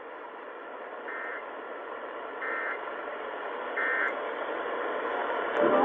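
Steady hiss of radio static in a gap of a broadcast weather warning, with three short beeps about a second and a half apart; a louder sound starts right at the end.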